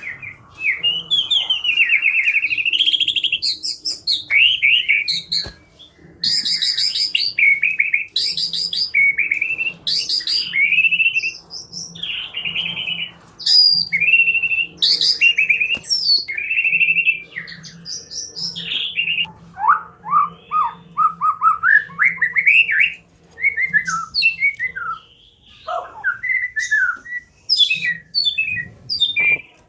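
White-rumped shama (murai batu) singing a long, varied song of loud whistles, sweeping notes and rapid trills, phrase after phrase with short pauses between.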